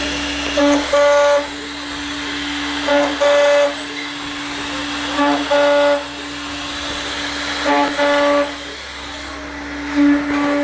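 Aluminium profile machining centre running with a steady hum. A pitched whine repeats about every two and a half seconds, each time a short blip followed by a longer stretch.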